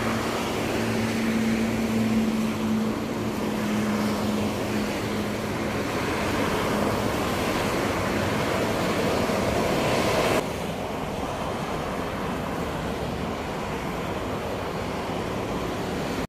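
Expressway traffic passing: a steady rush of tyres and engines, with a held engine drone in the first few seconds. About ten seconds in, the sound cuts abruptly to a quieter steady rumble.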